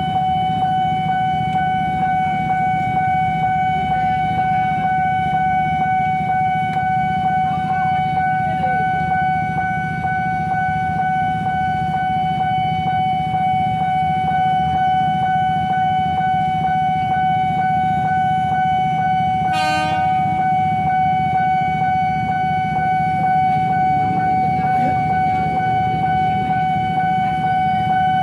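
A level-crossing warning alarm sounds one steady unbroken electronic tone over a low steady rumble. A single short horn toot comes about twenty seconds in.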